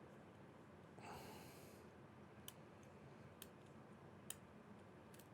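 Faint, sharp clicks of a hook pick working the pins of a Corbin pin-tumbler lock cylinder under light tension: three clicks about a second apart, with a soft breath out about a second in.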